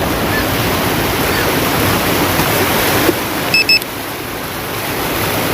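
Steady wash of sea surf and wind noise. About two-thirds of the way in, two short high electronic beeps in quick succession.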